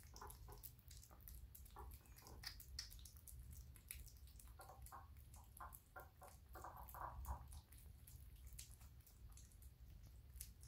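Two kittens eating soft wet cat food: faint, quick wet chewing and smacking clicks, irregular and overlapping, over a low steady hum.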